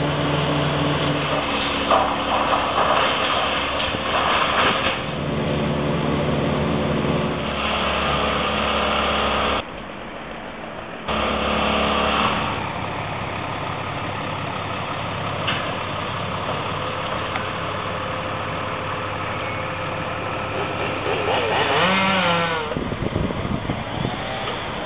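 Engines of tree-removal trucks and machinery running steadily, the sound dropping away and returning abruptly about ten seconds in. Near the end an engine's pitch swoops down and back up.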